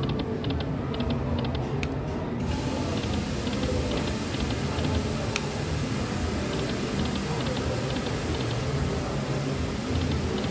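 Dragon Link video slot machine spinning its reels, with clusters of soft rapid ticks over the steady hum of the casino floor.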